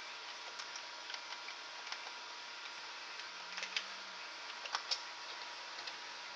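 Faint scattered clicks and ticks over a steady low hiss with a faint high whine.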